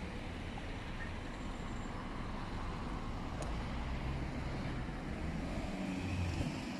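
Steady street traffic noise, with a vehicle's low engine rumble swelling near the end.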